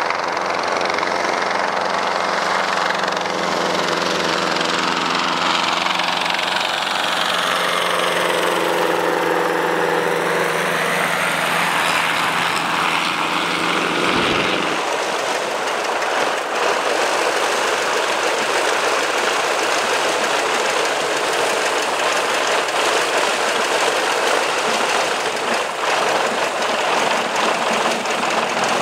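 Royal Aircraft Factory B.E.2 biplane's piston engine and propeller running as it taxis past on grass, the tone of the sound sweeping as the aircraft goes by. About halfway through it changes abruptly to the same engine running steadily at low power with the aircraft standing still.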